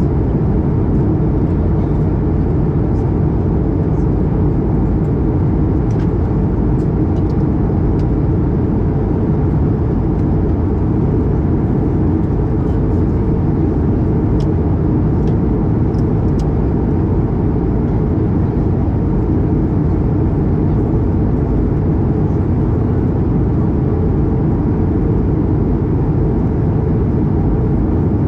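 Steady, loud cabin noise of an Airbus A220-300 airliner in flight: the low, even rush of airflow and its Pratt & Whitney PW1500G geared turbofan engines heard from a window seat, with a few faint light ticks in the first half.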